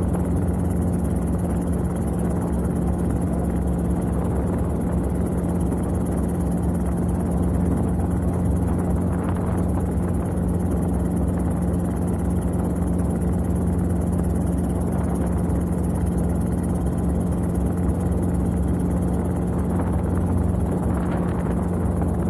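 Robinson R22 helicopter heard from inside its cockpit, engine and rotors running steadily while it holds a low hover. A strong, even low hum with a rumble under it and a faint high whine above, unchanging throughout.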